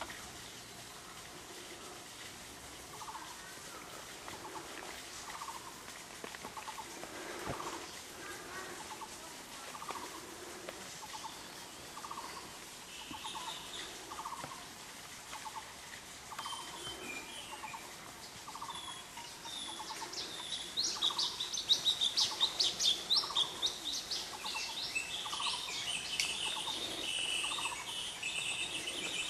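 Birds calling: a short pulsed call repeated about once a second, joined about halfway by high, rapid chirping that grows louder in the last third.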